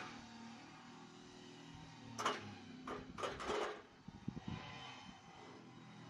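Aluminium ladder clanking: one sharp clank, then a quick run of several more as it is unfolded and leaned against a brick wall, followed by a few soft low thumps.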